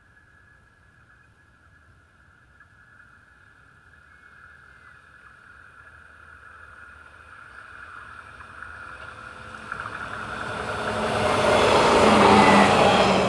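A train approaching, growing steadily louder over about ten seconds, and passing close by near the end, where its running noise peaks and begins to fade.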